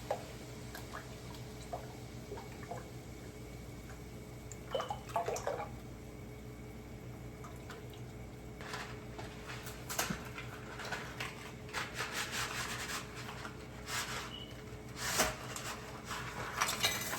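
Kitchen cooking sounds: heavy whipping cream poured into a pan, with irregular clicks and utensil-on-pan scrapes, heavier in the second half, over a steady low hum.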